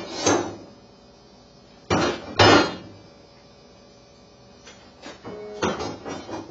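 Knocks and taps of an EV charger's mounting bracket being handled and set against a wall: two knocks near the start, two louder ones about two seconds in, the second the loudest, then a cluster of lighter taps near the end.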